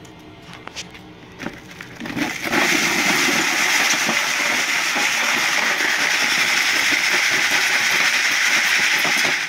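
Small rock chips rattling and grinding against each other and a wire-mesh screen as a hand sieve is shaken. A few separate clicks of stones come first, then a steady, loud rattle from about two seconds in.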